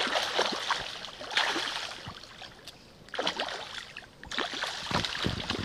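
Fish splashing at the water's surface as they snap up thrown feed. The splashing comes in several separate bursts.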